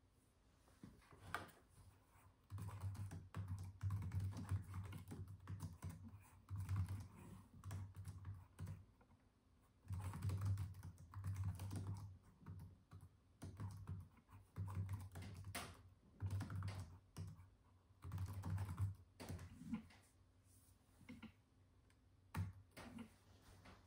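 Typing on the Raspberry Pi 400's built-in compact keyboard: runs of rapid key clicks with short pauses between them, thinning to a few single taps near the end.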